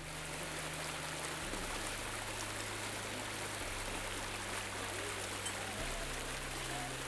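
Steady rushing ambient noise, even and unbroken, under low sustained bass notes that shift to a new pitch every couple of seconds.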